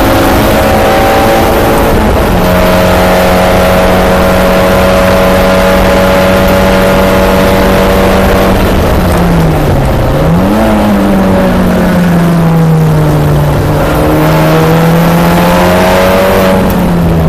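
Volkswagen Jetta GLI race car's turbocharged four-cylinder engine heard from inside the cabin, loud and holding a steady pitch down the straight. About nine seconds in the pitch dips and jumps sharply back up, as when braking and blipping the throttle on a downshift, then sinks and climbs again through the corner before dropping near the end.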